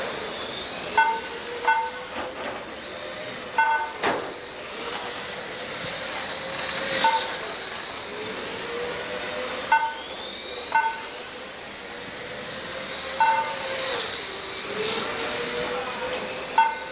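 Radio-controlled race cars running on the track, their motors whining high and gliding up and down in pitch as they speed up and slow down. Short electronic beeps cut through every few seconds, often two in quick succession.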